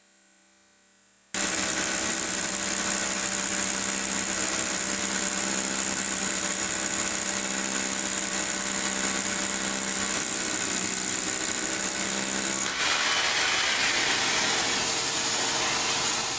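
Metabo KHE3250 SDS rotary hammer running steadily, starting suddenly about a second in, changing abruptly near the end and then fading out.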